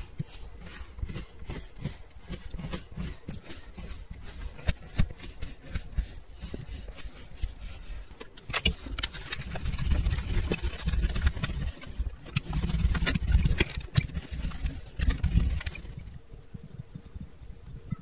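Kinetic sand crunching and crackling as a metal tube presses and cuts into moulded blocks of it, many small crackles a second. About halfway through, a louder, rumbling crunch comes as a clear roller is rolled over the packed sand, in two passes with a short break between. It turns quiet near the end.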